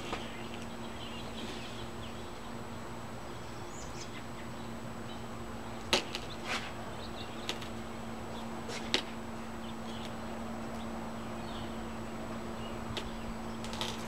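Windshield removal with a cold knife (pull knife): a few sharp clicks and taps of the tool at the glass, bunched in the middle, over a steady low hum and faint short chirps.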